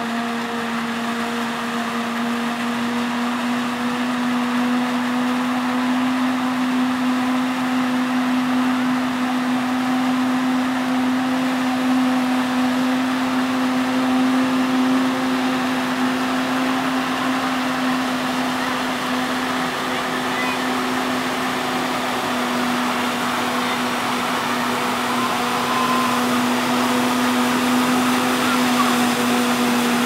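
Forage harvester chopping standing maize, with a tractor's engine running alongside: a steady machine hum with a constant droning tone held throughout.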